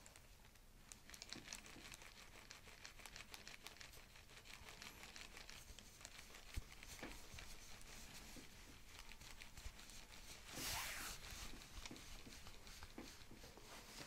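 Faint crinkling and rustling of clothing and the paper face cover as a chiropractor's hands press and slide along a patient's back on an adjustment table. There is one small click about six and a half seconds in, and a louder brushing rustle lasting under a second around eleven seconds in.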